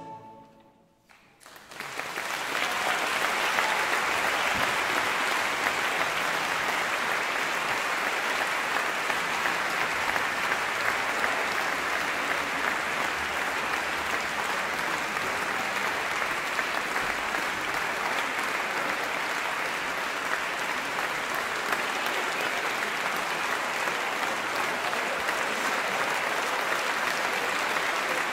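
A choir's last note dies away into a moment of silence, then an audience breaks into applause about two seconds in and keeps clapping steadily.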